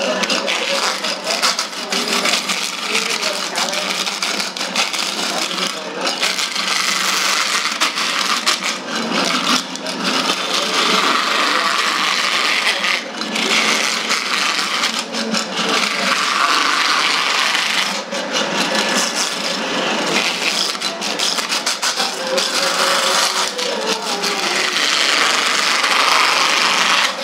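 A hand-held steel cylinder fish scaler scraped hard along a large carp, giving a continuous rasping crackle as the scales tear loose and scatter. There are a few brief breaks between strokes.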